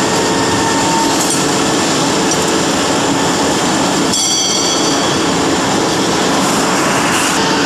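30-litre vacuum emulsifying homogenizer mixer running, its motor and agitator giving a loud, steady mechanical noise with a low hum. A brief high-pitched whine comes about four seconds in.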